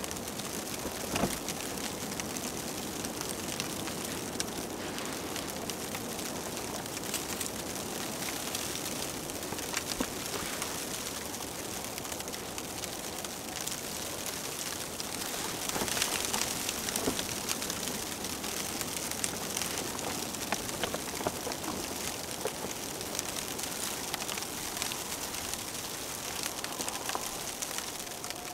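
Steady hiss of a snowstorm, wind and falling snow, with small scattered ticks and rustles from paracord being pulled and tied around a boot.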